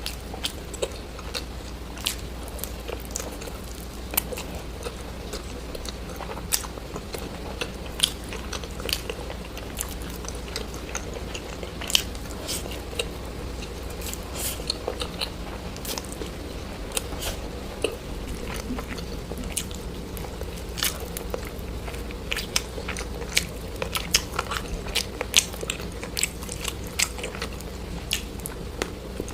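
Close-miked ASMR eating: crunchy bites and chewing, with many sharp, irregular crackling clicks throughout.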